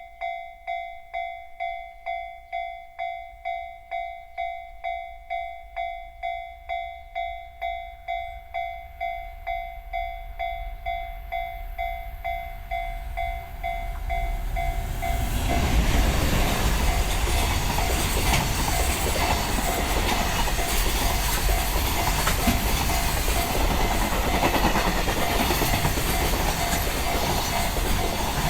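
Railway level-crossing bell of the JR standard type ringing about twice a second as a freight train hauled by an EF510 electric locomotive approaches. About fifteen seconds in, the loud, steady noise of the passing freight train takes over and the bell is no longer heard.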